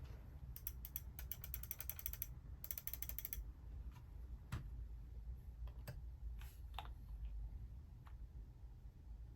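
Mechanical keyboard being handled: two runs of rapid, fine, ratchet-like ticking in the first few seconds, then a few separate key clicks.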